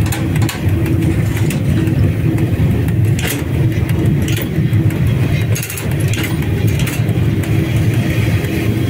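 VL10 electric locomotive heard from its cab while running: a steady low rumbling drone with a held hum, broken by a few sharp clicks and knocks.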